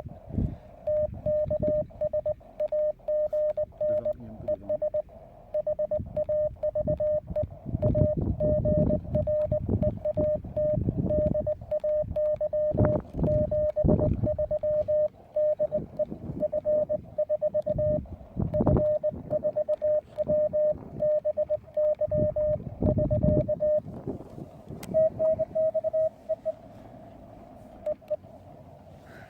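Morse code (CW) from a Weber MTR CW transceiver: a single steady beep keyed rapidly on and off in dots and dashes. The keying pauses near the end, then a short run of a slightly higher beep follows. Irregular low rumble sits underneath.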